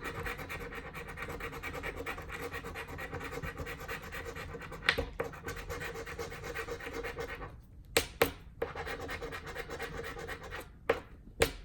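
Fingernails scratching the coating off a scratch-off lottery ticket in quick, repeated strokes, with a few sharper clicks, several of them over the second half.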